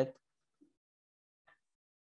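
Near silence in a pause in a man's speech: his voice trails off at the very start, then two faint clicks.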